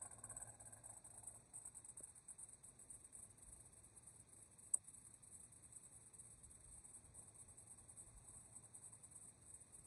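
Near silence with a steady high chirring of crickets, and one sharp click about five seconds in as the Nova's driver-door latch is released.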